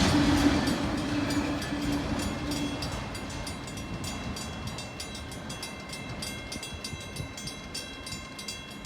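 Freight train rolling past and moving away, its wheels clicking rapidly and steadily over the rails as it slowly fades. A steady low hum stops about three seconds in, and faint high steady tones ring later on.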